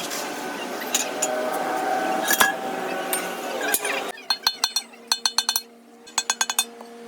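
Metal tools working on metal in a truck repair shop: busy clattering for the first few seconds, then three short runs of quick, light metallic clinks over a steady hum.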